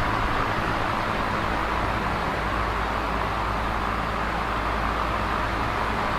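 Large box fan running steadily: a constant whooshing rush of air over a low motor hum, with no change in speed.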